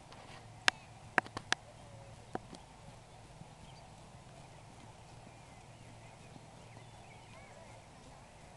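A horse cantering on arena footing, with a handful of sharp knocks in the first two and a half seconds, three of them in a quick run, over a faint steady background.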